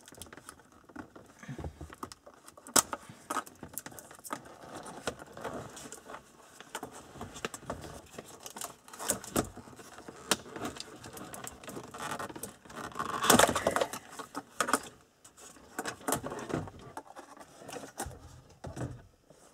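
Plastic handling noise from a Nissan Maxima instrument cluster being moved by hand after its wiring connectors are unplugged: scattered clicks and knocks of the plastic housing, with a longer, louder scrape about two-thirds of the way through.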